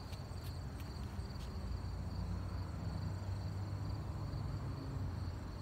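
Crickets chirping steadily, a continuous high trill over a low rumble.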